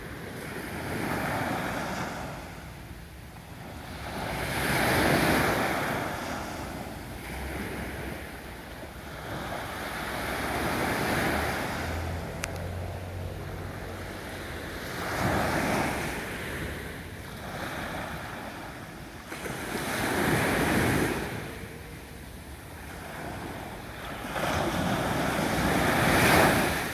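Small waves on a calm sea breaking and washing up a sandy beach, the surf swelling and fading every four to five seconds. The last surge, near the end, is the loudest.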